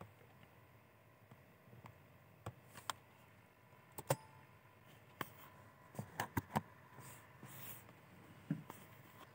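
Quiet room tone with a faint steady hum and a scattering of short, faint clicks and taps at irregular moments, a small cluster of them a little past the middle.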